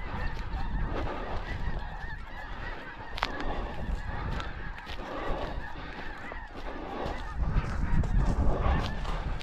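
A large flock of snow geese calling continuously, many overlapping honks at once, over a low rumble.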